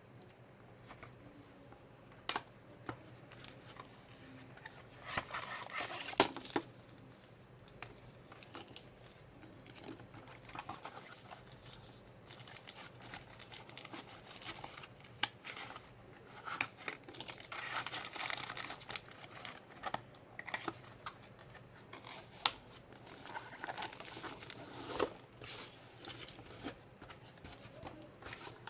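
Packaging being handled and unwrapped: plastic and paper wrapping crinkling and rustling in irregular bouts, with scattered sharp clicks and taps.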